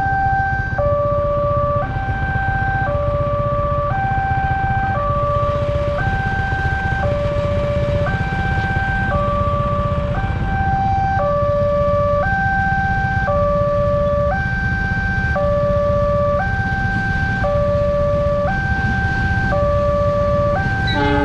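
Railroad crossing warning alarm sounding its steady two-tone signal, a higher and a lower note alternating about once a second each, to warn that a train is coming. A low rumble of waiting traffic runs underneath.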